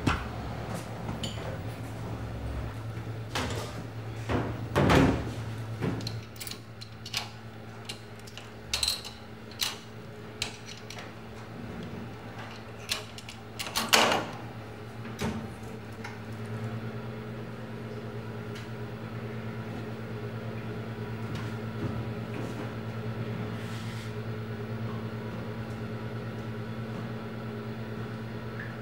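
Laundry being handled at a top-loading washing machine: scattered knocks and plastic clatter from the basket and the machine, then, from about halfway, a steady low hum as the washer runs.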